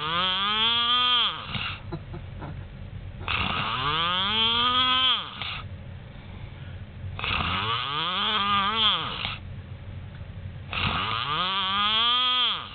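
Loud snoring from a sleeper: a long snore about every four seconds, each lasting a couple of seconds, with a droning tone that rises and then falls in pitch over a harsh rasp.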